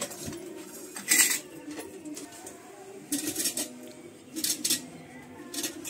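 Several short bursts of metallic clinking and rattling, like steel household utensils being handled, about four in all, with a faint low murmur between them.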